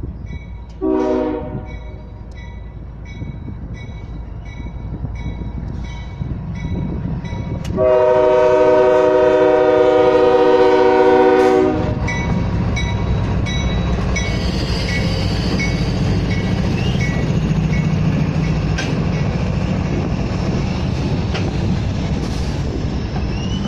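CSX diesel freight train sounding its horn at a grade crossing, one short blast about a second in and a long blast a few seconds later, over the steady ding of the crossing bell about twice a second. The lead locomotives then pass close by with a loud low engine rumble, followed by freight cars rolling past on the rails.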